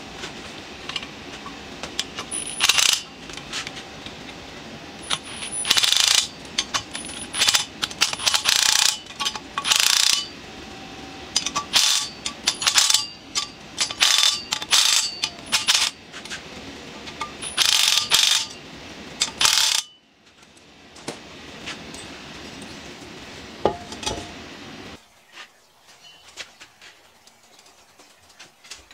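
Milwaukee cordless ratchet running in repeated short bursts, backing off the nuts that hold a brake rotor, mixed with sharp metallic clinks. The bursts stop about twenty seconds in, leaving a few faint clicks.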